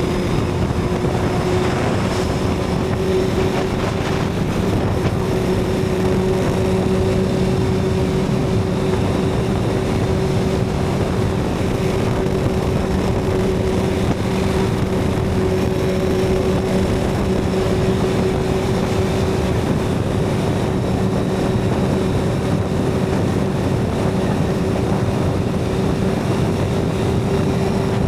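Suzuki GSX-R750's inline-four engine through a Yoshimura TRS exhaust, running at steady, almost unchanging revs while cruising.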